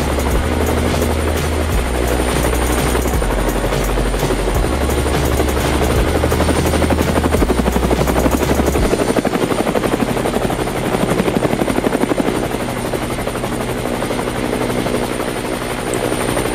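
Two small DC motors spinning green plastic propellers on a homemade mini electric helicopter, a steady buzzing whir. The loudness pulses for a while in the middle.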